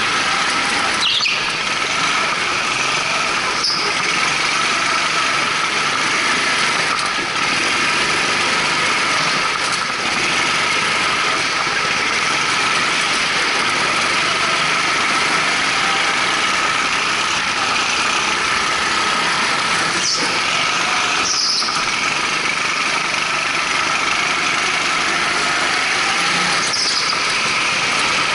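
Go-kart's Honda GX200 engine running steadily at speed, heard from on board the kart. Short tyre squeals come through about five times as it corners.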